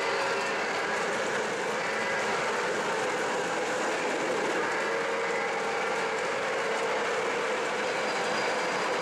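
O gauge model steam train running on track: a steady rolling rumble and rattle of its wheels on the rails, with a faint held tone running through it.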